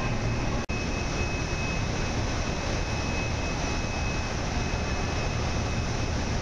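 Steady drone of brewhouse machinery and ventilation: a constant rushing noise over a low hum, with a thin high steady whine. The sound drops out for an instant under a second in.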